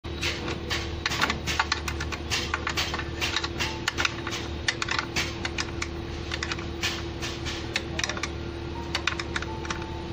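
Rapid, irregular light metallic clicks of a spanner working the nuts on a vacuum brake booster's studs, thinning out after the first few seconds, over a steady background hum.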